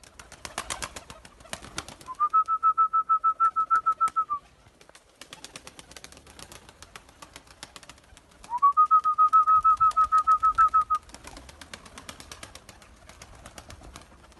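Takla tumbler pigeons clapping their wings in flight, heard as many sharp cracks. Twice a loud trilled whistle at one steady pitch, about two seconds long and pulsing about six times a second, stands out above the claps.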